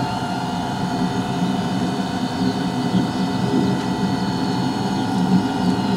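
Model jet turbine running steadily at idle: an even, high whine over a low rumble.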